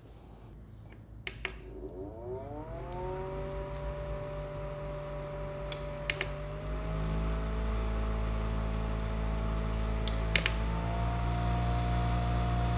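Small electric fan motor in a mini humidifier fan clicked on and spinning up with a rising whir. It is then clicked twice more, stepping up through its speeds, each click bringing a louder, slightly higher hum.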